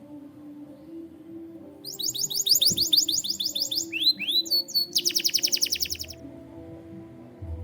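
Domestic canary singing one phrase: a run of fast repeated high falling notes, a few swooping notes, then a very rapid even trill that stops about six seconds in.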